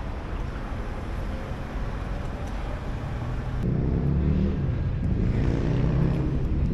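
Road traffic: a steady rumble of passing vehicles, with one vehicle's engine droning louder from about three and a half seconds in.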